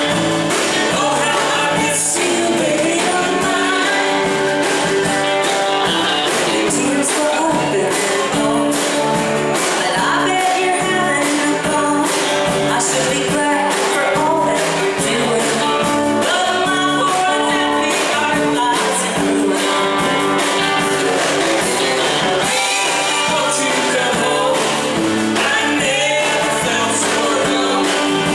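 Live band music: a woman singing lead while playing mandolin, backed by electric guitar, electric bass and a drum kit keeping a steady beat.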